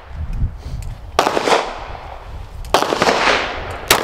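Three 9mm pistol shots from a Canik Mete MC9, slow aimed fire at a steel target, spaced about a second and a half apart, each trailing off quickly.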